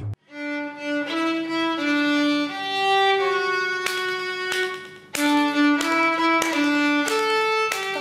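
Solo violin playing a slow melody of held, bowed notes, with a short break about five seconds in before the phrase starts again.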